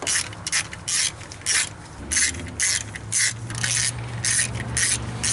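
Hand ratchet driving a T40 Torx bit, swung back and forth in short strokes so the pawl clicks in quick rasping runs, about two or three a second, as it snugs down the camshaft thrust plate bolts.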